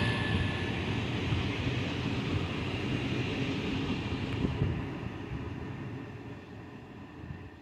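GWR Class 802 bi-mode train moving away, its underfloor diesel engines and wheel-on-rail noise fading steadily.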